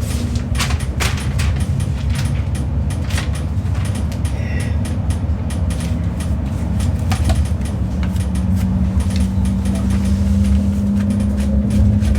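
Cabin noise of a regional passenger train: a steady low rumble with rattling clicks from the running gear. About eight seconds in, a steady hum joins, edging up in pitch.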